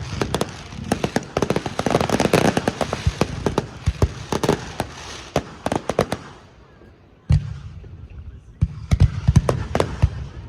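Aerial fireworks bursting at close range: rapid, dense crackling bangs for about six seconds, a short lull, then a deep boom about seven seconds in, followed by more quick bangs.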